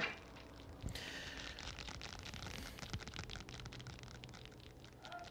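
Faint horror-film soundtrack: a thud about a second in, then soft scratching and crackling sounds.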